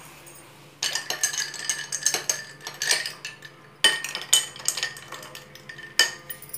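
A metal spoon stirring ice cubes in glass tumblers, clinking rapidly against the glass in bursts that start about a second in, with a last sharp clink near the end.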